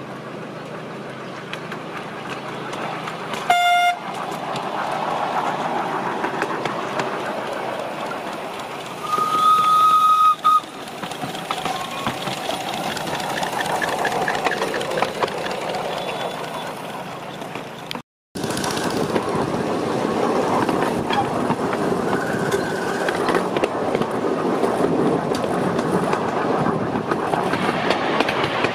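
Miniature ride-on railway locomotive running along the track and tooting twice: a short toot about 3.5 s in and a longer, steady one of about a second and a half around the 9–10 s mark. After a brief cut near the middle, the steady running noise of the train on the rails continues, with faint ticks.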